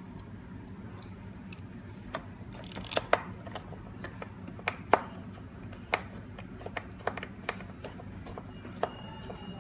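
Irregular sharp metal clicks and small taps from a screwdriver and screws being driven into a door lock's back panel, about ten in all, the loudest near the middle.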